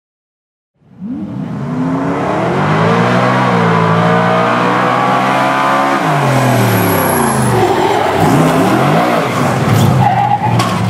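Engine of a red hot-rod motorized fire drill rig running hard as it races down the track. It starts about a second in, climbs steadily, then its pitch drops sharply about six seconds in and keeps rising and falling after that.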